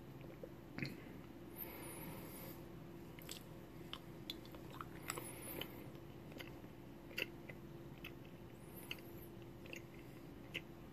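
A person quietly chewing a crayon close to the microphone: irregular soft crunches and small mouth clicks over a faint steady hum.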